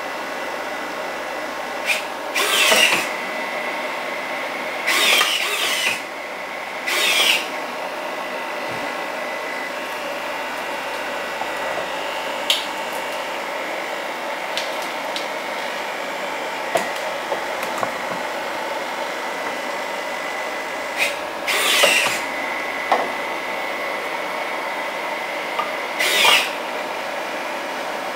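Servo motors of a 3D-printed InMoov robotic hand running in five short bursts as its fingers move, over a steady mechanical hum, with a few light clicks.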